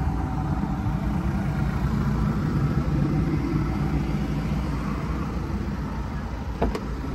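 VW California's 180 bhp twin-turbo diesel engine idling steadily, with a couple of light knocks near the end.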